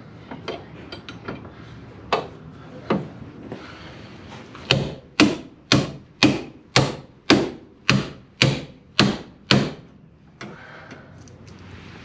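Hammer blows on the door hinge of a Jeep Cherokee XJ, struck through a tool held in locking pliers to drive out the worn hinge pin. A couple of lighter taps, then about ten hard metallic blows at roughly two a second.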